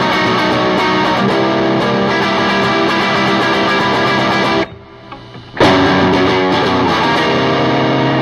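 Amplified Gibson Les Paul electric guitar playing a chord phrase, set up to imitate a Telecaster's tone. The playing breaks off briefly about halfway through, then resumes and stops at the end.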